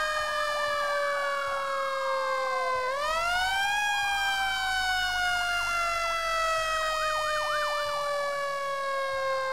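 Fire truck siren wailing. Its tone slides slowly down, jumps quickly back up about three seconds in, then slides slowly down again, while a faster warbling siren rises and falls several times a second over it.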